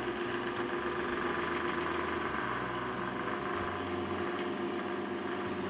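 Steady hum of an electric fan running, with an even hiss under it.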